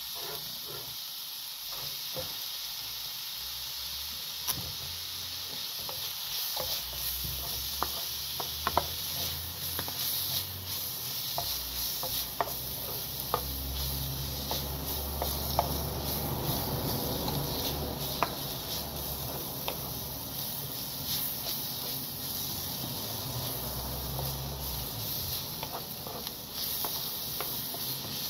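Chopped pak choi and onion sizzling gently over low heat in a frying pan, with a steady hiss, while a wooden spatula stirs them, scraping and clicking against the pan now and then.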